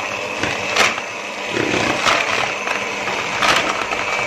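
Electric hand mixer running steadily, its twin beaters whipping a frothy ice-cream powder mix with ice water in a plastic bowl. Three sharp knocks, about a second and a half apart, as the beaters strike the side of the bowl.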